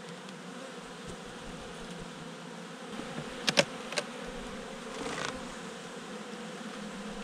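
Honeybees buzzing around an opened hive in a steady hum. Two sharp clicks come about three and a half and four seconds in.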